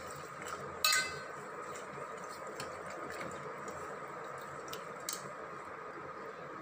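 Steel ladle stirring curry leaves in water in a stainless steel pot, striking the pot's side with one ringing clink about a second in and a few light taps later, over a steady background hum.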